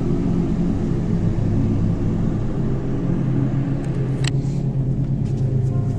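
Low, steady droning rumble of held tones from a horror-film score, with a single sharp click about four seconds in.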